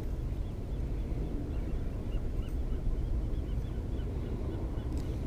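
Spinning reel cranked steadily on a retrieve, giving a faint, even squeak of about three a second, over a steady low rumble of wind on the microphone. A short click near the end.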